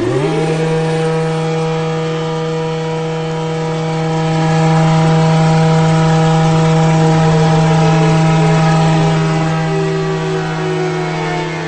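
Outdoor warning siren spinning up to pitch in the first half-second, then sounding a steady chord of tones that swells in loudness about halfway through. One of its upper tones slowly sags in pitch over the last few seconds and begins to climb again at the very end.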